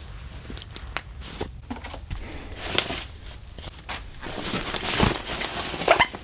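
A canvas shoulder bag being handled and packed: rustling and scraping of fabric and gear, with scattered small clicks in the first few seconds and louder scrapes near the end.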